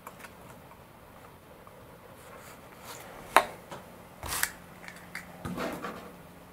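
Hands handling small tools and wires on a work surface: scattered light clicks and knocks, the loudest a single sharp click about three and a half seconds in.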